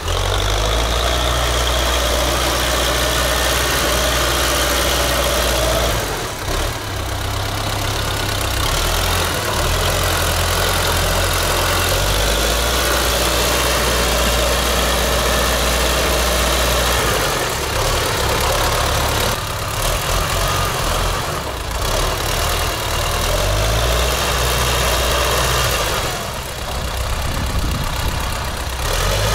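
T-40 tractor's air-cooled diesel engine running, its speed shifting up and down every few seconds instead of holding steady. This is an unstable idle, which the owner says only settles at high revs.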